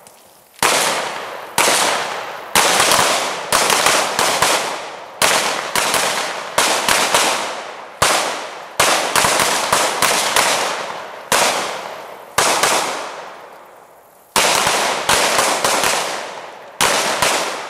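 Gunfire from several shooters firing pistols at once: dozens of sharp, irregular shots, often in quick clusters, each trailing off in an echo, with a short lull before a final burst.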